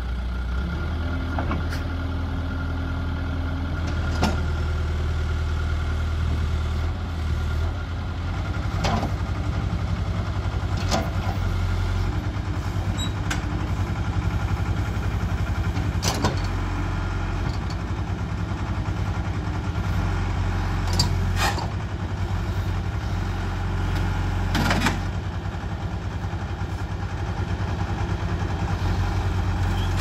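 Diesel engine of a John Deere backhoe loader running steadily under hydraulic load as its backhoe boom and bucket lever the machine up, with several sharp metallic clanks along the way.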